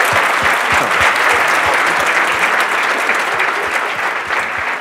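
A large audience applauding, the clapping easing off toward the end.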